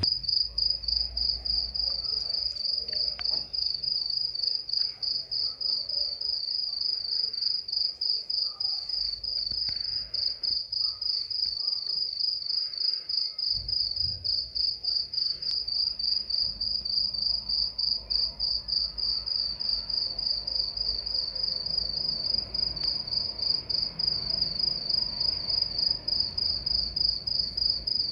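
A cricket chirping steadily in an even, unbroken train of high-pitched pulses.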